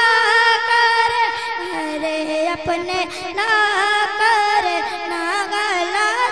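A solo high voice singing a naat, holding a long, wavering melismatic passage without words between lines of the verse.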